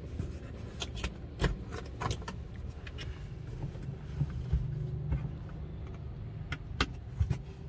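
Scattered sharp plastic clicks and knocks as a mirror dash cam is clipped over a car's rear-view mirror and its cable handled, over a steady low hum in the cabin.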